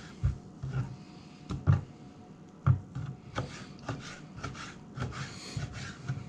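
Knife cutting raw walleye fillet into chunks on a plastic cutting board: irregular soft knocks of the blade hitting the board, with some rubbing between them.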